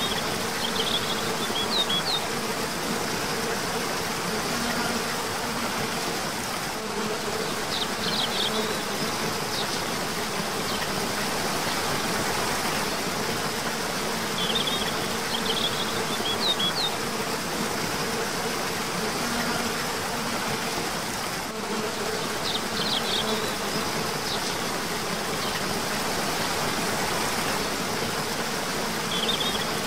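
Steady rush of a cascading waterfall, with short bird chirp phrases recurring about every seven seconds and insects buzzing on and off.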